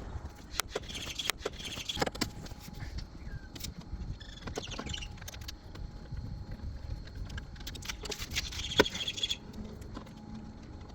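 A screwdriver undoing the screws that hold a car door's lock actuator in place: scattered clicks and knocks of the tool and screws. Short squeaks come twice, about a second in and again near the end.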